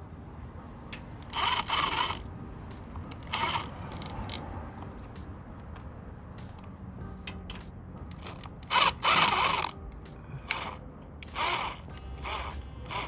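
Cordless impact driver running in about seven short bursts, the longest and loudest about nine seconds in, as it unscrews the bolts of a VW Beetle's rear torsion tube cover.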